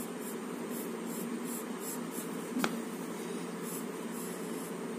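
Pencil scratching on paper in short repeated strokes, a few a second, over a steady low background hum; one sharp click about two and a half seconds in.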